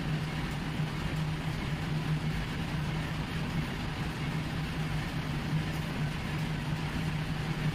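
Steady low hum over an even background noise, constant throughout; no distinct pen strokes stand out.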